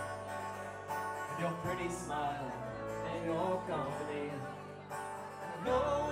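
Live band playing a song with a male lead vocal, in a country-folk style.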